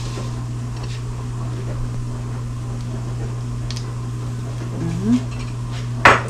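Steady low hum of a dishwasher running, over the faint sizzle of bacon frying in a pan. A short rising squeak comes about five seconds in, and a single sharp knock near the end.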